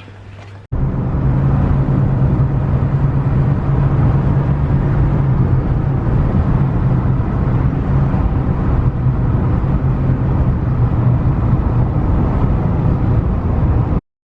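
Car engine running steadily at a constant pitch, starting suddenly about a second in and cutting off sharply near the end.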